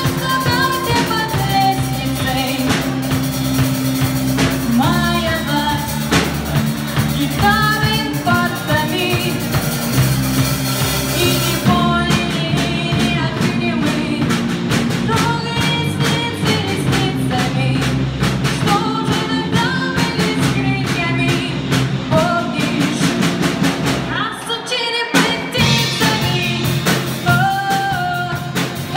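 A song: a voice singing a melody over a band backing with drums and bass. About twelve seconds in the high cymbal hiss drops away, and there is a brief break in the backing near the end.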